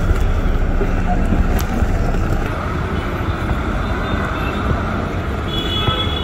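City bus engine running with a steady low rumble, heard from right beside the bus. A thin high-pitched tone comes in near the end.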